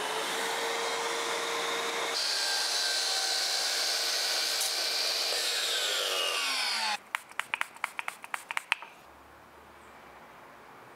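Makita sliding compound miter saw running and cutting a trim board, the cut starting about two seconds in and going on steadily for about four seconds. The blade then winds down with a falling whine, followed by a quick run of sharp clicks and taps and then a low hum.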